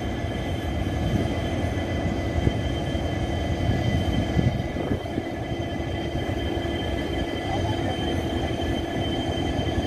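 A train standing at the platform, its engine running steadily: an even low rumble with a few faint steady whines above it.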